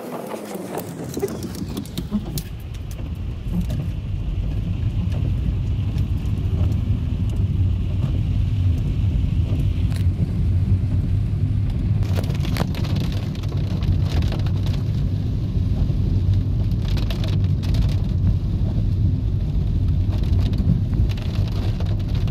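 Car driving through heavy rain, heard from inside the cabin: a steady low engine and tyre rumble on the wet road, with rain hitting the windscreen and body. It grows louder over the first few seconds, then holds steady, with a few brief louder swishes.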